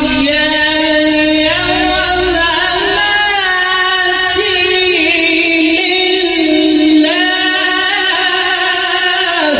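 A male qari reciting the Quran in the melodic tajweed style into a microphone: one voice holding long notes that waver and ornament in pitch, with a fresh phrase beginning about seven seconds in.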